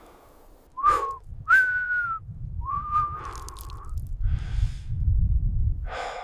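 Three whistle-like tones, each slightly bending in pitch, the third the longest, over a low rumble, followed later by two short breathy hisses.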